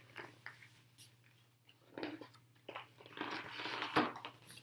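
Rustling paper and soft handling clicks as a large picture book's pages are turned, loudest for about two seconds in the second half.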